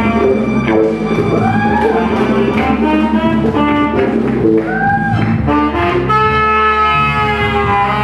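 Band playing jazz, with saxophone and trumpet lines over a low bass line. Two rising-and-falling pitch swoops come about two and five seconds in.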